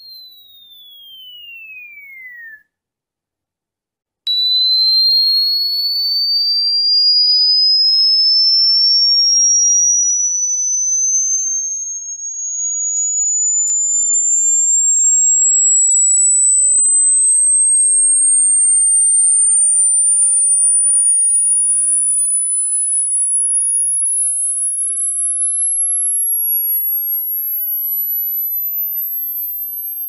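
Synthesized pure-tone sweeps played as a cricket-repelling sound: a falling tone drops in pitch and stops about two and a half seconds in. After a short silence a new tone starts abruptly and glides slowly upward from a mid whistle to a very high pitch.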